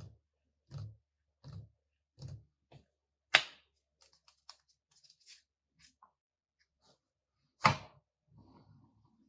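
Gloved hands patting a tabletop in a steady rhythm, about once every three-quarters of a second, then a loud sharp clap. Light rubbing and small clicks follow, then a second loud smack as the hands take hold of a cardboard box, which scuffs against the table.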